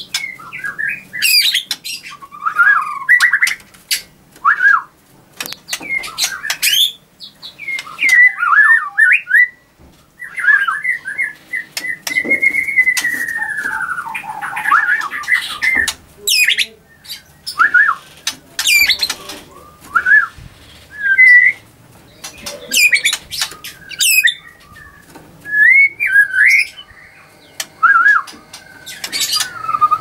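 White-rumped shama (murai batu) singing: a varied run of loud whistled phrases, quick warbles and sharp notes, with one long arching whistle about twelve seconds in.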